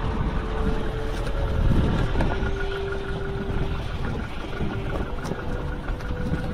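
A motor running with a steady low rumble, its hum shifting in pitch twice.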